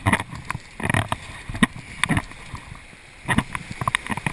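Kayak paddle strokes splashing in the water, about six irregular splashes, over the steady rush of river rapids.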